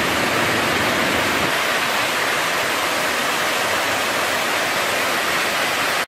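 Water pouring over a series of low stepped cascades, a steady rushing of white water that cuts off suddenly at the end.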